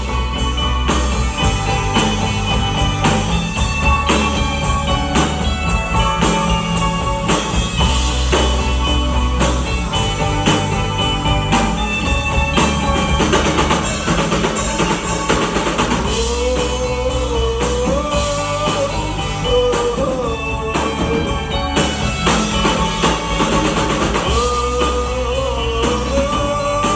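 Live rock band playing, with drum kit, guitar and a sung or held melodic line.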